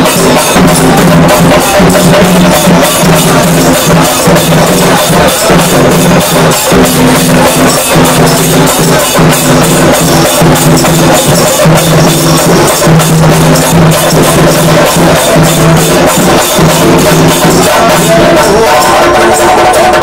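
Loud festival music: dense, rapid drumming and hand percussion under a held melodic line that shifts pitch now and then.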